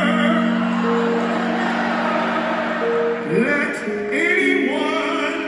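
Live band music amplified in an arena: a held low chord with singing voices sliding in about three seconds in.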